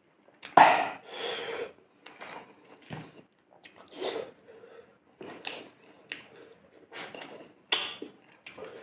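Close-miked eating by hand: fingers mixing rice and curry on a plate, with chewing, in irregular short bursts; the loudest comes about half a second in.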